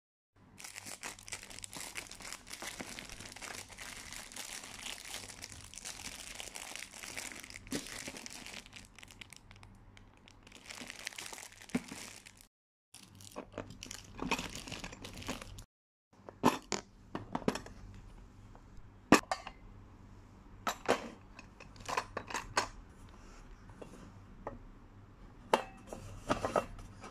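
Plastic wrap crinkling as it is peeled off a plastic lunchbox, for roughly the first half. Then a string of separate sharp clicks and clinks as the box's lid clips and stainless steel compartments are handled.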